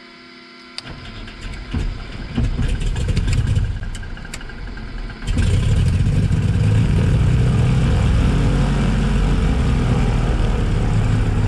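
Cessna 310's left fuel-injected Continental engine being hot-started: the starter cranks the propeller for about four seconds with a rapid clicking churn. Then the engine catches a little after five seconds in and settles into a loud, steady run. The engine is hot from recent flight, a start prone to vapour lock in the injector lines.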